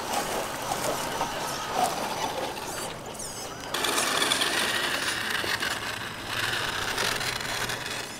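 Electric motors and geared drivetrains of 1/10-scale RC trail trucks whirring and whining as they drive over dirt and dry grass, the whine shifting in pitch with the throttle.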